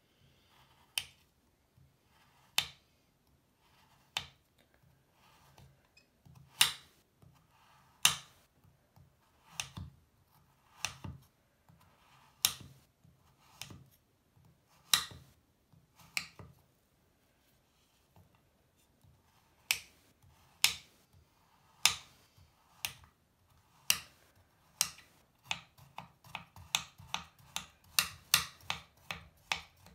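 Kitchen knife slicing through a solid bubble bar and clicking sharply on a marble-and-wood cutting board, one cut every second or two. Near the end it quickens into chopping, two or three cuts a second.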